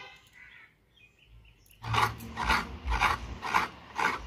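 Hand rubbing ground rice across a ridged stone grating slab, making rasping scrapes about twice a second that begin about two seconds in.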